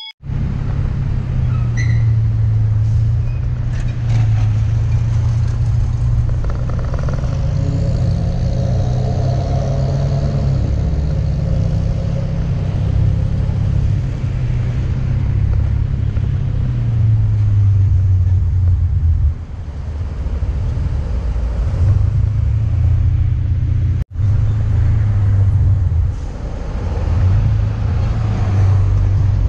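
Motorcycle riding through traffic: a continuous low rumble of engine and wind on the microphone, with the pitch of the engine bands shifting as the speed changes. The sound cuts out for an instant about three-quarters of the way through.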